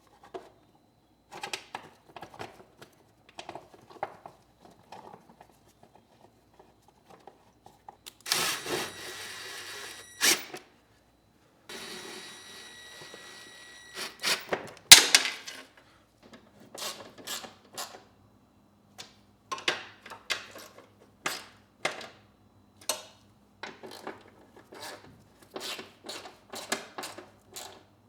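Workshop tool work on a mower: scattered clicks and clanks of hand tools on metal, two bursts of a whirring power tool about 8 and 12 seconds in, and a sharp clank about 15 seconds in. After that a faint steady hum sits under more clicking.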